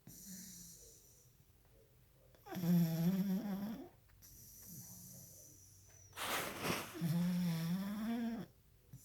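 Sleeping dog snoring extremely loud: two long, pitched snores about four seconds apart, with faint breathing between them and a short noisy breath just before the second snore.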